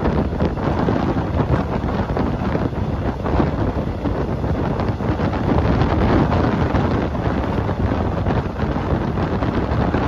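Wind buffeting the microphone: a steady, loud rumbling noise with no let-up.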